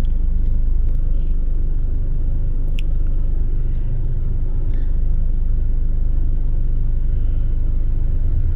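Steady low rumble at a constant level, with one faint tick about three seconds in.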